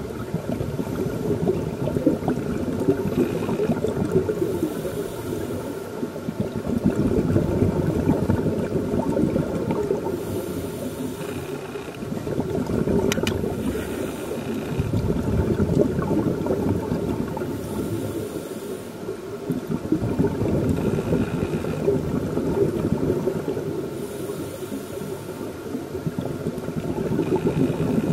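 Scuba regulator breathing heard underwater: a short hissing inhale, then a long bubbling exhale, repeating every several seconds.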